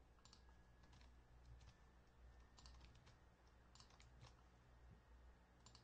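Faint computer keyboard keystrokes, a scattered handful of light taps over a low steady room hum.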